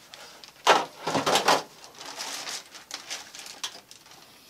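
Handling noises: a burst of rustling and knocking about a second in, then quieter scattered shuffling.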